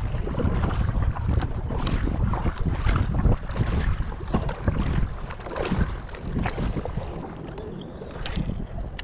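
Wind buffeting the microphone in a heavy low rumble, with choppy water slapping irregularly against a kayak's hull.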